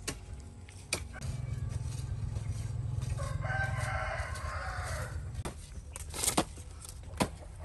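A rooster crows once, starting about three seconds in and lasting about a second and a half, with a few sharp knocks before and after it.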